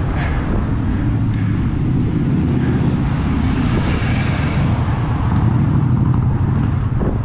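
Wind buffeting the camera microphone, a loud, fluttering low rumble, with road traffic passing close by.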